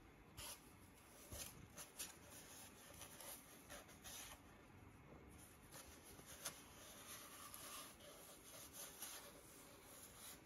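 Faint, scattered scratches and soft taps of a Siberian kitten's claws and teeth on a cardboard tube as it grabs and bites it.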